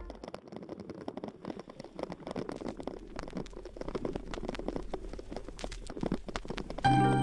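Mountain bike tyres rolling over a trail of dry fallen leaves and twigs: a dense, irregular crackling and crunching with scattered knocks. Music comes in near the end.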